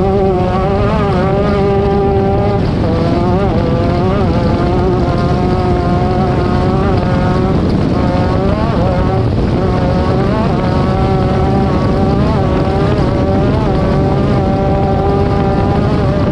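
Off-road race vehicle's engine running hard and continuously, its pitch wavering up and down with the throttle, over a constant loud rumble.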